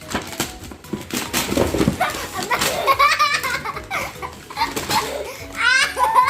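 Young girls squealing and giggling with excitement, with high wavering squeals about midway and again near the end, over short clicks and rustles of toy packaging being handled.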